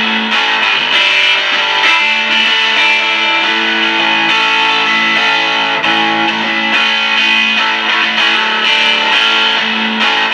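Overdriven electric guitar loop, run through a Z.Vex Distortron pedal and a Dr. Z Maz 18 tube amp head, playing through a single WGS Veteran 10-inch speaker in a pine 4x10 cabinet, heard from about 18 feet away. Loud and steady, with sustained notes and chords.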